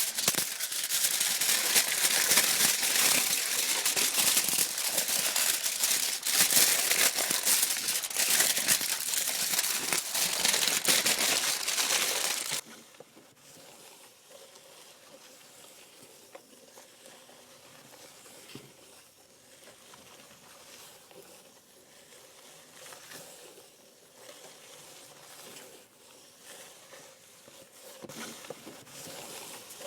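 Aluminium foil crinkling and crumpling in a dense, continuous crackle that cuts off suddenly about twelve seconds in. After that there is only a faint background with a thin steady tone.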